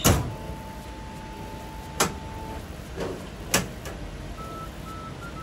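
Toast vending machine: a loud clunk, then one long electronic beep, then clicks and clacks of its metal hatch being handled. A simple beeping tune starts up near the end.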